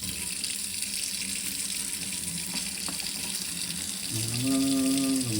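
Tap water running steadily over a circuit board being washed. About four seconds in a steady low pitched hum joins it, breaks briefly and starts again near the end.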